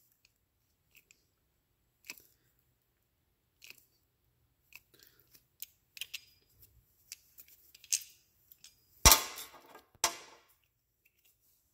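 Mastercool 72475 hydraulic brake line flaring tool being pumped by hand, driving the cone to finish a flare in stainless steel brake line: scattered small clicks and creaks from the tool, then two loud sharp metal clacks about a second apart near the end.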